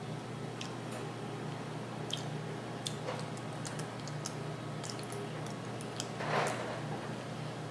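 Close-miked mouth sounds of someone chewing soft baked sweet potato: faint wet clicks and smacks over a steady low hum, with a louder breathy sound about six seconds in.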